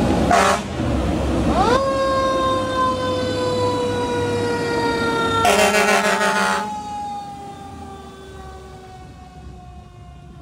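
Fire engine passing with its siren: a brief air-horn blast, then the siren winds up quickly and slowly winds down, with a second, longer air-horn blast midway. The sound fades as the truck moves off.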